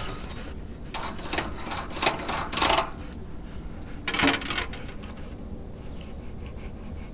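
A knife cutting steak on a metal baking sheet: a run of quick clicks and scrapes of the blade against the sheet, then a louder metallic clatter about four seconds in.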